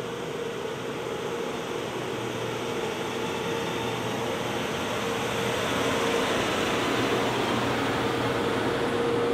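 Ashok Leyland Stallion 4x4 truck's six-cylinder turbocharged diesel engine running as the truck drives down a concrete ramp, with a steady hum. It grows louder about six seconds in as the truck passes close.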